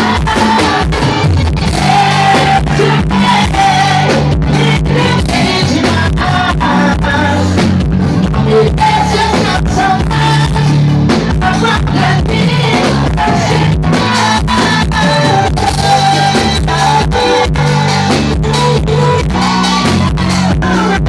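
Live band music with a singer, a steady drum beat and bass, loud throughout.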